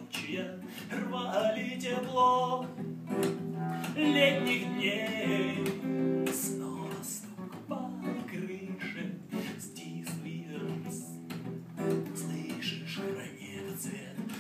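Acoustic guitar being strummed, with a voice singing over it in places.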